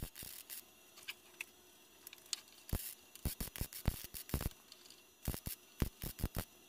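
MIG welder crackling in short bursts, stitch-welding sheet-metal repair into the windshield pillar of a 1954 Volkswagen oval-window Beetle. There are a few faint clicks at first, then about a dozen brief crackles in quick clusters from about three seconds in.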